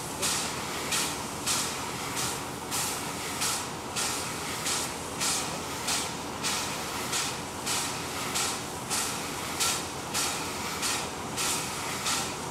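Standing class 422.0 steam tank locomotive hissing in a steady rhythm of about two puffs a second, the beat of its steam-driven air pump charging the brake reservoirs.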